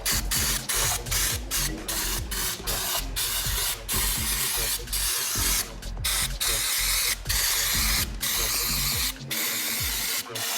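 A spraying hiss in many short bursts, stopping and starting again and again, with a music beat underneath.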